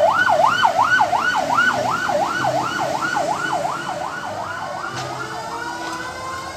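Electronic yelp siren, its pitch sweeping rapidly up and down about two and a half times a second. After about four seconds the sweep gives way to slowly rising steady tones.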